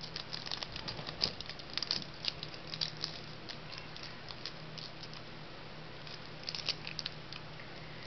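Small crinkles and crackles of aluminium foil folded and pinched by fingers around a small piece of cardboard, busiest in the first three seconds and again briefly near the end, over a low steady hum.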